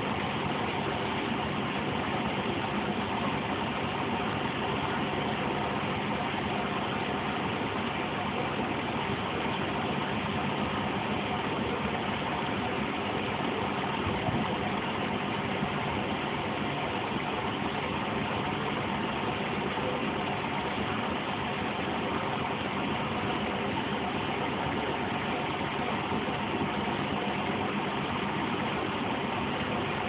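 Zanussi Z630 front-loading washing machine spinning its drum at a steady speed with a steady hum: the 550 rpm intermediate spin that drains the fourth rinse before the softener.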